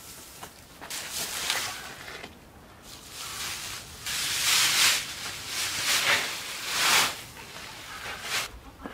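Dry granular material poured from a woven plastic sack onto a heap on concrete, a gritty rushing that comes in several spells and is loudest a little past the middle.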